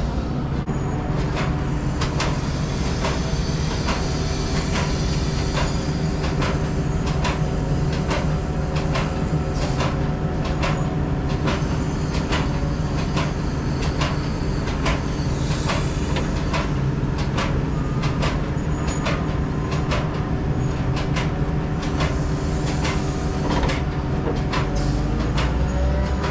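Hauling vehicle driving on the road: a steady engine and road drone with frequent rattles and clanks.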